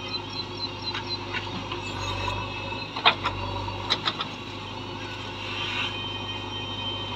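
Diesel engine of a JCB 3DX backhoe loader running steadily while the backhoe arm digs, with two sharp knocks about three and four seconds in.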